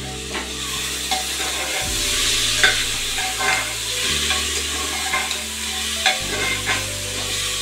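Long metal spoon stirring chopped bottle gourd (lauki) in an open pressure cooker, with scattered clinks and scrapes against the pot wall over a steady sizzle of frying.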